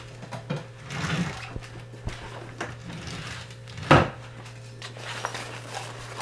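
Handling noises around a wooden desk and a backpack: scattered soft knocks and rustles, with one sharp knock about four seconds in, over a steady low hum.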